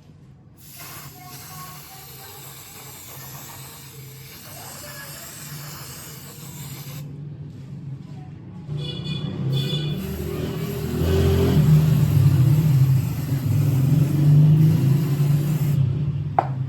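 A low, steady engine-like hum that grows louder through the second half, with a brief high-pitched tone a little past the middle.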